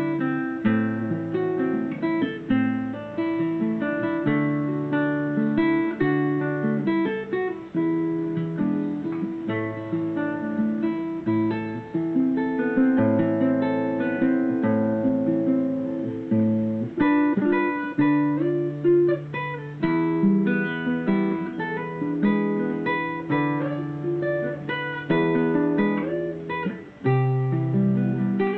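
Solo nylon-string classical guitar, fingerpicked: a melody line played over bass notes, with no voice.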